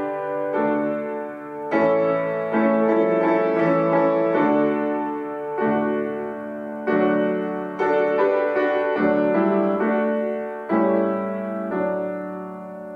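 Piano playing the postlude: slow chords, each struck and left to ring and fade. The last chord, about eleven seconds in, dies away.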